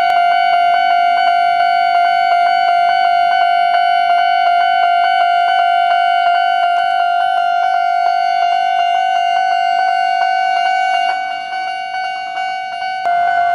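Japanese railway level crossing's electronic melodic warning bell, ringing as a steady high tone with a fast, even pulse as the crossing closes ahead of an approaching Kintetsu train.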